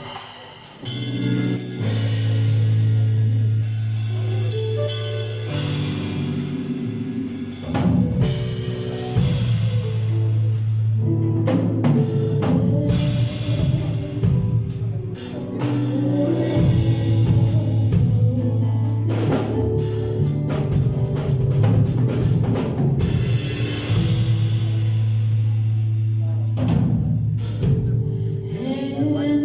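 Worship band music: a drum kit playing over long, held low bass notes, with faint singing in places.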